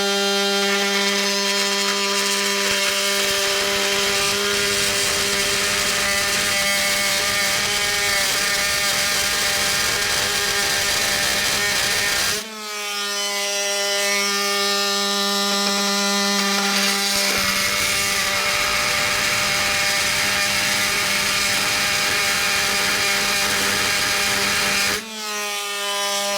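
Hercules 20V brushless cordless oscillating multi-tool running steadily on speed 3, its blade cutting a groove into a hardened steel bolt head, with a steady motor hum under a rough metal grinding. It stops briefly about halfway and starts again with a rising pitch, then stops near the end.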